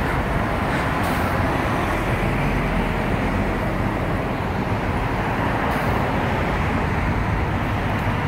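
Steady road noise of a moving car: tyre and wind rush over a low rumble, heard from inside the car.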